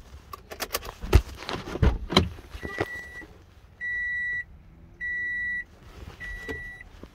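A few clicks and knocks as the driver's door is opened, then a 2012 Toyota Camry's warning chime beeping four times, one high tone repeating about every 1.2 seconds, with the ignition on and the driver's door open.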